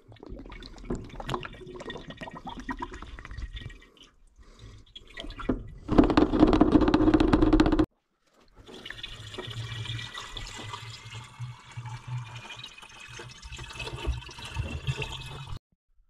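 Evapo-Rust Thermocure poured from a plastic jug into a tractor's radiator filler neck, gurgling and splashing as the radiator fills with the rust-removing flush. It is loudest just before it stops abruptly about halfway, then a quieter stretch of liquid running and gurgling follows.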